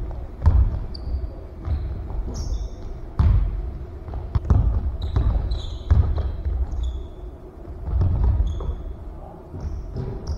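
A basketball bouncing on a hardwood gym floor in a pickup game, sharp thuds every second or two that ring briefly in the hall. Short high sneaker squeaks come between the bounces.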